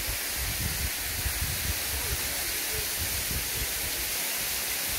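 Waterfall pouring down a rock face: a steady, even rush of water, with irregular low rumbles underneath.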